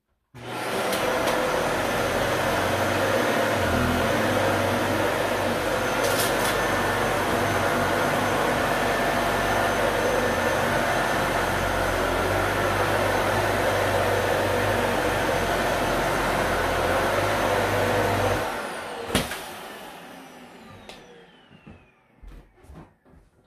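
Dyson Ball Multi Floor 2 upright vacuum cleaner switching on and running steadily over carpet for about eighteen seconds. It is then switched off, with a sharp knock, and the motor winds down with a falling whine.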